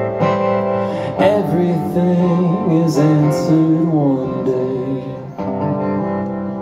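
Live acoustic guitar chords ringing out with a man singing over them, in the closing bars of a song.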